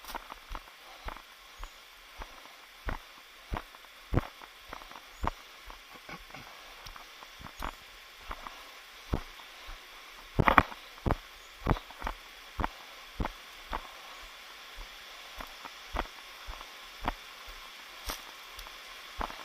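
Footsteps of a person hiking over rocky ground: short irregular knocks about one to two a second, with a louder cluster of knocks about halfway through, over a steady hiss.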